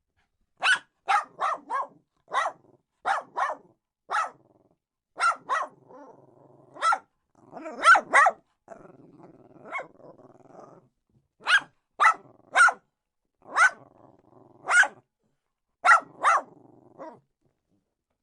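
A dog barking aggressively in short volleys of two or three sharp barks, about twenty in all, with low growling between the barks through the middle and later part.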